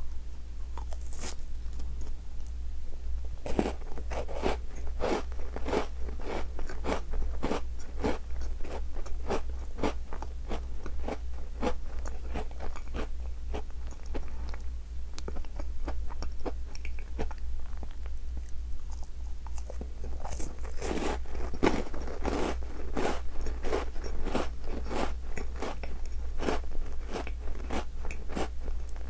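Close-up crunching and chewing of a chocolate-coated Tim Tam biscuit. There are two heavier spells of crunching, a few seconds in and again about two-thirds through, over a steady low hum.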